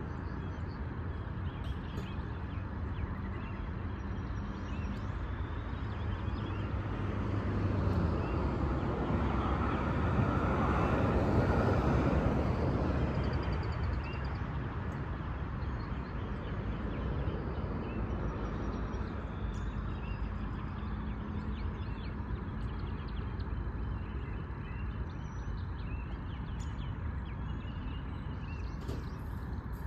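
Steady outdoor background noise with distant road traffic; a vehicle passes, swelling up about eight seconds in and fading away by about fourteen seconds.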